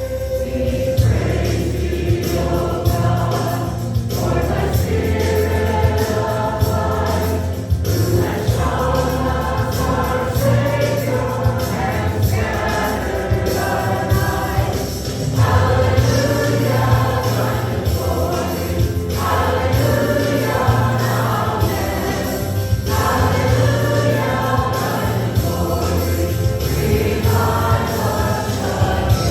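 Live church worship music: a group of voices singing a Christian worship song over a band with a steady, heavy bass line and a regular beat.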